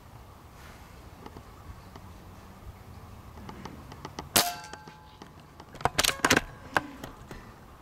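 A .22 Benjamin Marauder Woods Walker precharged pneumatic air gun fires one shot about four and a half seconds in: a single sharp crack with a brief metallic ring. About a second and a half later comes a quick cluster of sharp clicks, then one more click.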